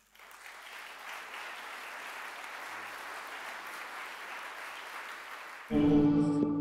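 Audience applauding steadily after a speech. About five and a half seconds in, closing music with held, ringing tones comes in louder than the applause.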